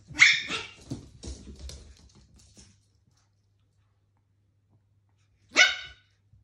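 Pomeranians play-fighting: a sharp bark right at the start, a couple of seconds of scuffling with smaller yaps, then quiet until one more sharp bark near the end.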